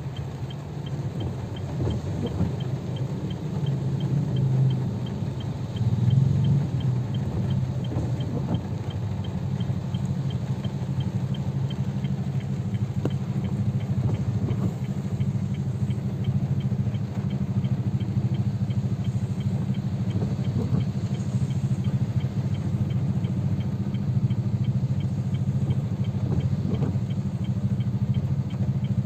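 Car engine idling, heard from inside the cabin as a steady low hum, in stop-and-go traffic during heavy rain, with a light, evenly spaced ticking throughout.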